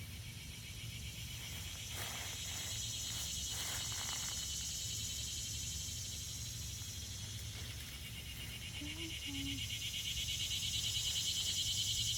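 A chorus of insects making a high, finely pulsing buzz that swells, eases, and swells again, over a faint low rumble.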